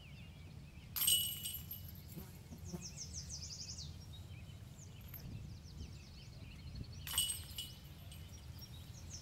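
Disc golf discs striking the chains and metal basket of a disc golf target twice, a sudden metallic crash with a short ringing jingle, about a second in and again about seven seconds in. A songbird trills quickly between the two hits.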